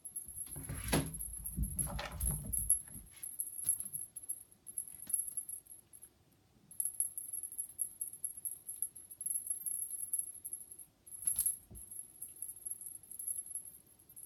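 Feather wand cat toy being waved and flicked, giving a high, fluttering rustle and jingle that comes and goes. Soft bumps and knocks come in the first three seconds, and a single knock about eleven seconds in.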